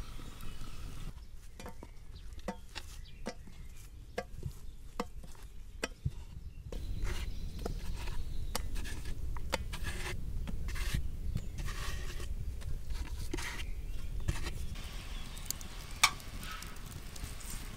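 Soft, repeated taps and clicks of filled dough dumplings being handled and set down on a wooden board, with one sharp clink near the end.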